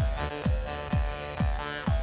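Background electronic dance music with a steady kick drum, about two beats a second, under sustained synth tones.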